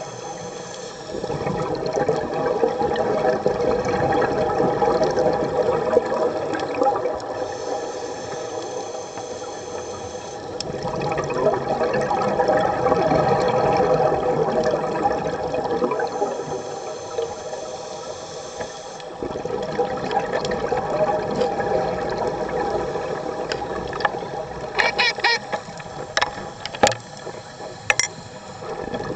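Muffled underwater bubbling and rushing of scuba divers' exhaled air from their regulators, swelling in surges a few seconds long, over a steady hum. A run of sharp clicks comes near the end.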